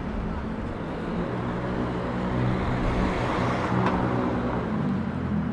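City street traffic: a motor vehicle's engine hums steadily, and a swell of passing road noise rises and fades, peaking about three and a half seconds in.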